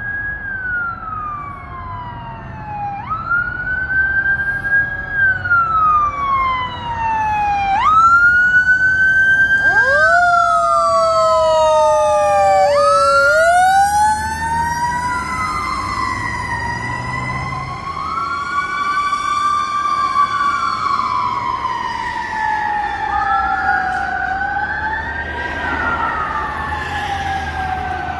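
Fire engine siren wailing as the truck drives past: each cycle rises quickly and falls slowly, repeating every few seconds. A second siren tone joins about ten seconds in, and the two overlap. It is loudest around the middle as the engine passes, and a low engine rumble sits underneath.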